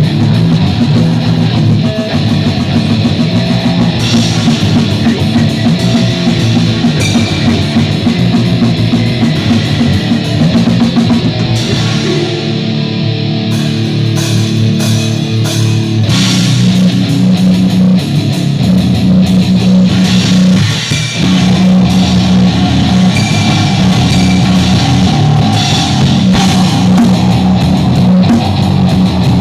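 Goregrind played loud on distorted guitar and drum kit. The sound thins for a few seconds near the middle, then the full band comes back in.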